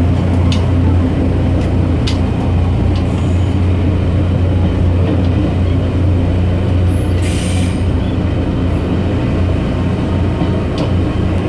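Diesel multiple-unit railcar heard at the gangway between cars: steady low hum of its diesel engine, with scattered clicks and rattles from the car connection. A short hiss comes about seven seconds in.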